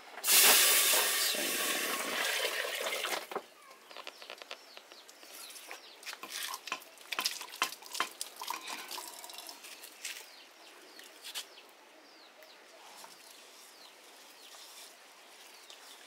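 Water poured from an aluminium jug into an aluminium cooking pot: a loud, steady gush for about three seconds that stops suddenly. Then quieter splashing and clinking as hands swish water and corn grits in a metal pot under an outdoor tap.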